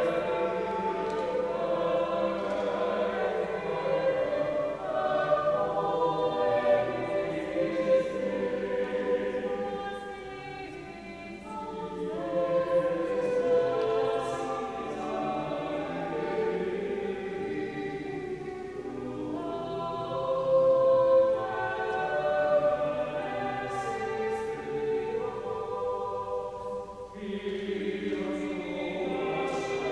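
Church choir singing a slow piece in held chords. It grows softer about ten seconds in and swells again from about twelve seconds.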